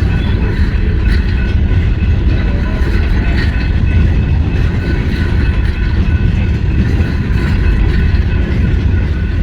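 Norfolk Southern freight train rolling past: a loud, steady rumble of wheels on rail, with faint thin high tones held over it.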